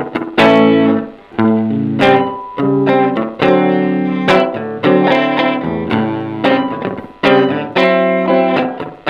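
Electric guitar played through a Pedal Tank Time Capsule 2 analog delay pedal with its delay time turned down to the shortest setting, so the repeats sit tight behind each note. It plays a slow run of about a dozen picked notes and chords, each ringing out and decaying.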